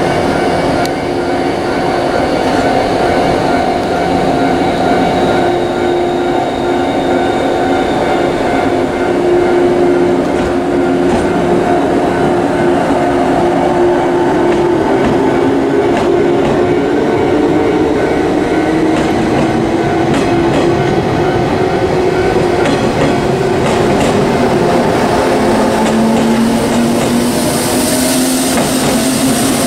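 Shinano Railway 115-series electric train pulling through the station close by, its motors whining and rising in pitch through the second half as it gathers speed, with wheels clacking over the rail joints.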